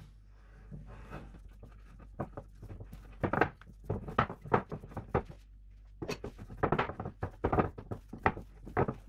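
A spatula working a stiff cheese filling of gorgonzola, mascarpone and grated parmesan in a glass bowl: a run of short scraping knocks, two or three a second, starting a couple of seconds in.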